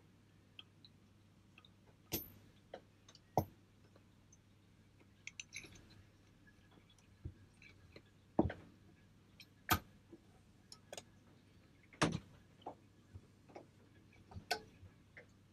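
Irregular sharp metallic clicks and clinks as a C-clamp overhead-cam valve spring compressor is worked over a cylinder head's valves, compressing the springs to fit the spring seats and tapered collets, over a faint steady low hum.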